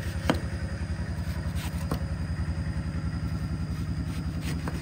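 Knife blade tapping a plastic cutting board a few times while a banana flower is sliced thinly, the strongest tap just after the start. Under it, the steady low throb of an engine idling.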